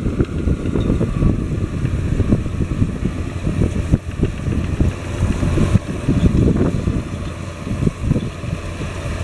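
John Deere 7530 tractor's six-cylinder diesel engine pulling under load, with the rumble of a mounted cultivator and seed drill combination working the soil. The sound runs steadily, with an uneven low rumble.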